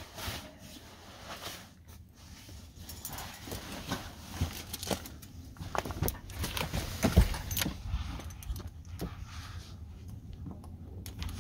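Handling noises of a hammock being rigged inside a minivan: scattered clicks, knocks and rustles of fabric and hardware at irregular intervals, the loudest knock about seven seconds in, over a low steady rumble.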